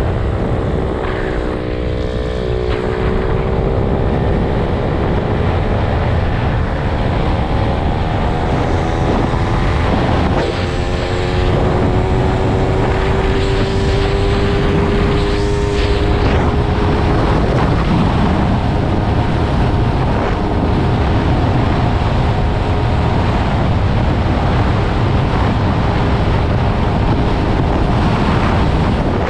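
Small motorbike engine running at riding speed, its pitch dipping in the first few seconds and then holding fairly steady, with wind rumbling on the microphone.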